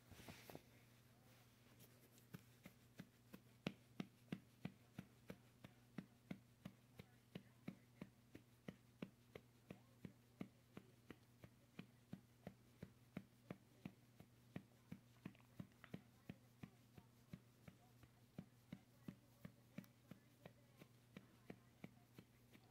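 A hand patting a baby's back in a steady rhythm of about three soft pats a second, to bring up a burp after breastfeeding.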